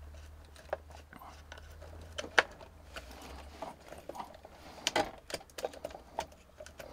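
Irregular clicks and light metallic taps of a wrench working nuts and bolts under a truck's dashboard. A low steady hum underneath stops about halfway through.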